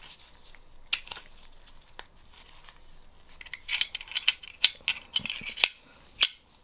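Disassembled Glock pistol parts being handled: one click, then a quick run of sharp clicks and clinks in the second half as the parts knock against each other and the work surface.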